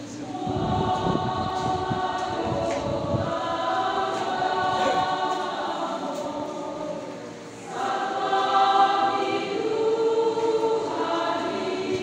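Church choir of men and women singing together in sustained sung phrases, with a short break between phrases about seven seconds in.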